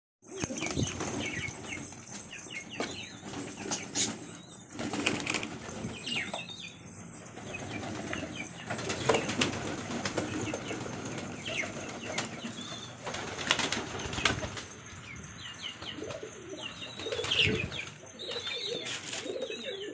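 Pigeons flapping their wings and scuffling as they feed on scattered grain, with short high bird chirps now and then.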